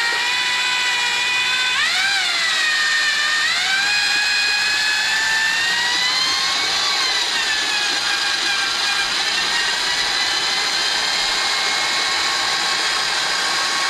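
Chicago Electric mixing drill turning a drywall mixing paddle in a 5-gallon bucket, stirring sugar into warm water to make syrup. Its motor whines steadily, with the pitch jumping up about two seconds in, rising again shortly after and easing down a little in the second half.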